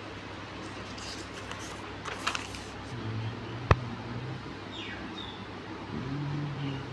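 Handling noise over steady background hiss: brief rustling, then one sharp click a little later. A faint low hum comes and goes twice.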